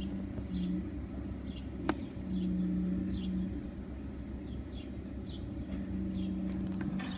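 8 hp Mercury outboard motor running steadily, its hum swelling louder twice, with repeated short high chirps and a single sharp click about two seconds in.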